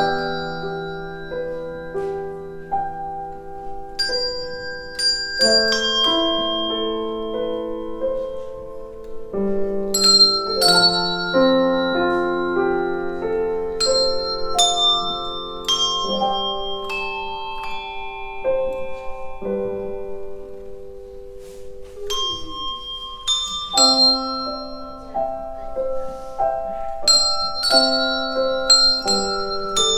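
"Prologue" practice handbells playing a slow melody with piano accompaniment. Each note is struck sharply and left to ring, so several bell tones overlap into chords.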